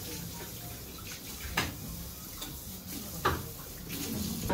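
Small restaurant's room noise: a steady low hum with faint scattered ticks and two sharp clicks of tableware about a second and a half apart.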